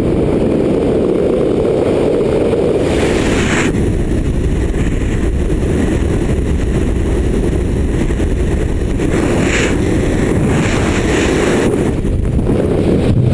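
Loud, steady rush of wind buffeting the camera's microphone as a BASE jumper falls from a cliff.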